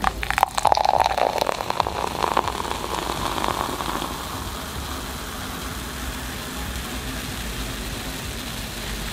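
Coca-Cola poured from a can into a tall glass. The splashing of the pour is strongest for the first few seconds, then gives way to a steady fizzing hiss as the foam rises.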